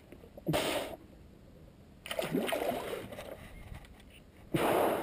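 Seawater splashing in three short bursts, about two seconds apart, as a hand plunges in to grab a hooked ballan wrasse at the surface.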